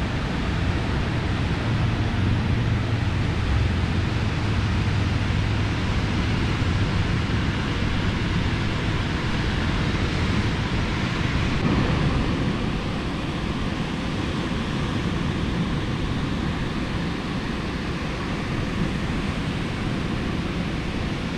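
Ocean surf breaking on a sandy beach: a steady wash of noise with no distinct events.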